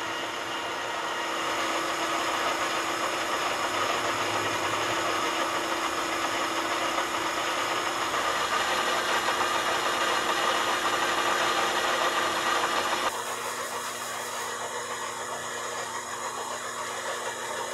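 Metal lathe turning a steel shaft while the cutting tool skims the shaft's collar flat to make a bearing surface: a steady motor hum with a dense cutting hiss over it. About 13 seconds in, the hiss drops off suddenly and the lathe keeps running more quietly.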